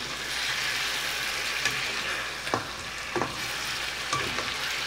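Sweet potato slices sizzling in a wok in hot sugar and strawberry jam glaze, stirred with a wooden spatula; a steady sizzle with a few light knocks of the spatula against the pan.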